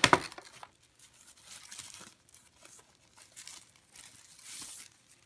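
Clear plastic sleeve around a new tablet crinkling and rustling as it is handled and pulled off, with a sharp knock right at the start and a louder burst of crinkling near the end.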